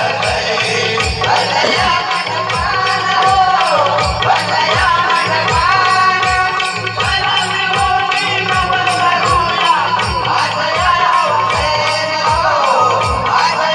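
Naman folk song performed live: men singing a melody over a steady beat of barrel-drum (mridang) strokes and small hand cymbals (taal) striking in time.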